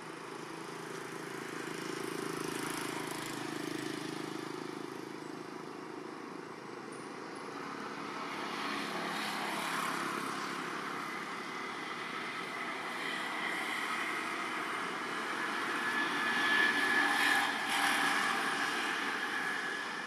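Motor traffic running past: a steady engine rush that swells and fades several times and is loudest near the end, with a faint high whine on top.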